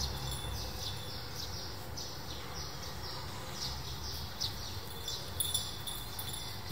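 Background chirping from small unseen animals: short high chirps repeating about three times a second over a faint steady outdoor hum.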